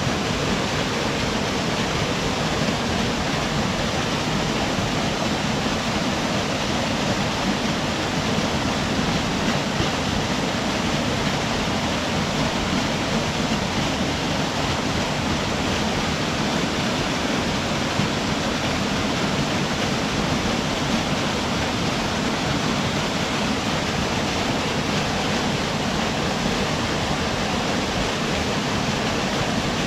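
Small mountain waterfall pouring steadily, a constant loud rush of falling water.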